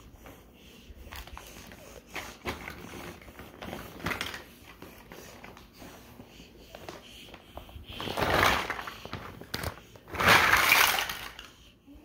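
A plastic bag of Mega Bloks rustling and crinkling, with the chunky plastic blocks rattling inside it. Near the end come two loud rushes of clatter as the blocks are shaken out onto the carpet.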